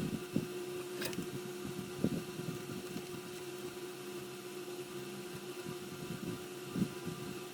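Small irregular taps, ticks and rustles of hands working with thin electrical wires, over a steady low hum.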